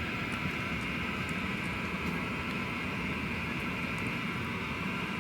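Steady whir of a running HVAC air handler's blower, with a high whine over a low hum and a few faint ticks.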